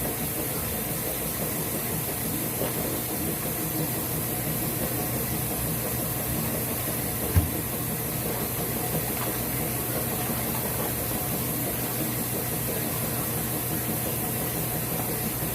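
A steady hum with an even hiss, like a machine running, with one brief low thump about seven seconds in.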